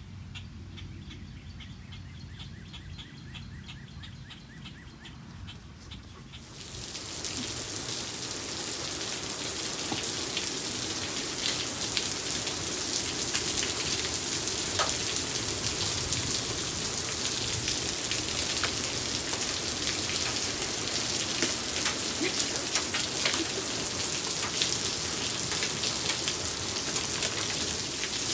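Faint birdsong at first; about six seconds in, heavy rain takes over, a steady loud hiss with many sharp drop clicks as it falls on a wooden deck and yard.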